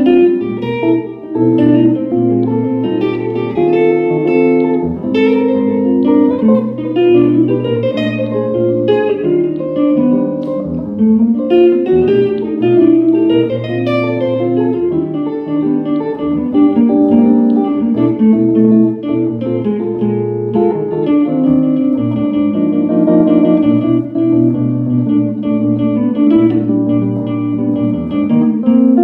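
Two amplified archtop guitars playing a duet: plucked chords and melody over sustained low notes.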